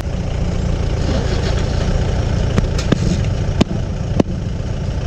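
Motorcycle engine idling with a steady low pulsing rumble. Four sharp clicks come in the second half.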